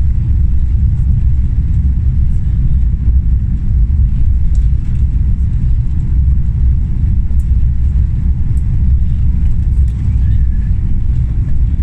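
Airbus A350-900's Rolls-Royce Trent XWB engines at take-off thrust, with the wheels rolling at speed down the runway, heard from inside the economy cabin as a loud, steady low rumble.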